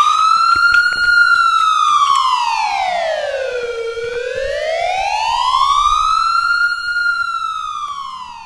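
Emergency-vehicle siren in wail mode: one slow rise and fall in pitch, highest about a second in, lowest about four seconds in, rising to a second peak near seven seconds, then falling and fading away near the end.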